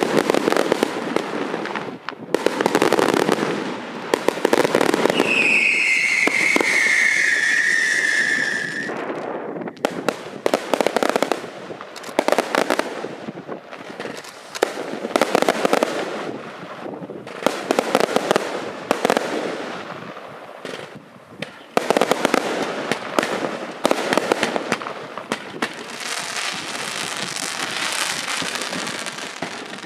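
Daytime colored-smoke fireworks going off in rapid volleys of bangs and crackling, with short lulls between volleys. One long falling whistle comes through about five seconds in.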